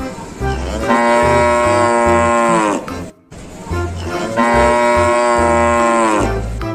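A cow mooing twice, two long calls that each drop in pitch at the end, over background music with a steady bass beat.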